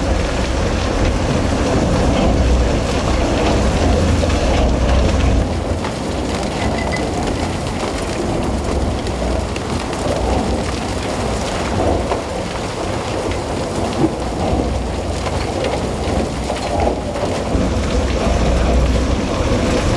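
Deep, steady rumble of a Herrenknecht tunnel boring machine's cutterhead grinding through the last rock of the tunnel face just before breakthrough, mixed with the hiss of water hoses spraying the face.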